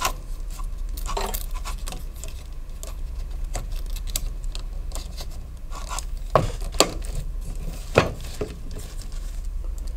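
A hunting knife with metal fittings and its leather sheath being handled and set down on a desk: rustling, scattered light clicks and clinks, and three sharper knocks in the second half.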